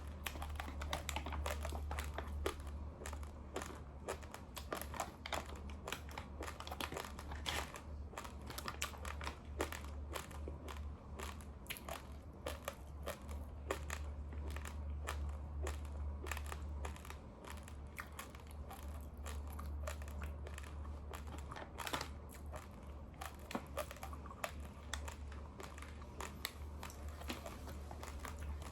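A person chewing raw, uncooked rice grains: dense, continuous crunching and crackling, over a steady low hum.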